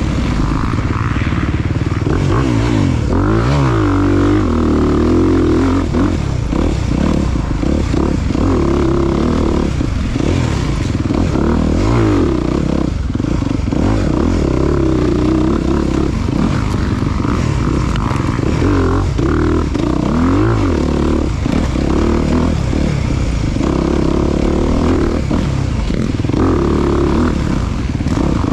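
Off-road dirt bike engine revving hard and easing off over and over as it rides, its pitch rising and falling without a break.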